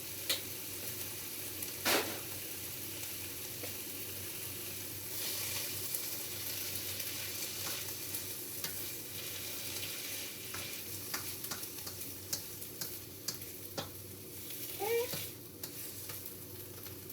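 Stir-fry vegetables sizzling in teriyaki sauce in a hot pan, a steady hiss, with the scattered clicks and scrapes of a utensil stirring them and a sharp knock about two seconds in.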